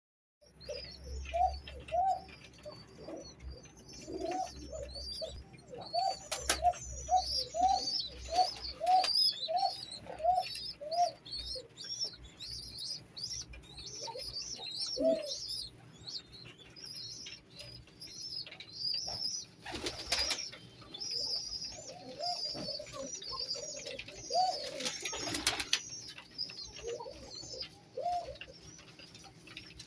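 Domestic pigeons in a loft cooing: a run of short coos repeating about twice a second, then scattered coos. A steady layer of high, quick chirping runs underneath. Brief wing flaps come a few times, including near the middle and about three-quarters through.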